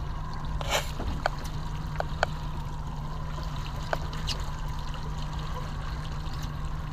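Water lapping and splashing against a small boat's hull over a steady low rumble, with a few short sharp clicks and knocks.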